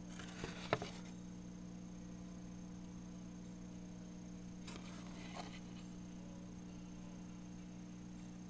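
Quiet steady electrical hum with a faint high whine over it. A couple of soft clicks come just under a second in, and a faint paper rustle about five seconds in as a folded paper leaflet is handled.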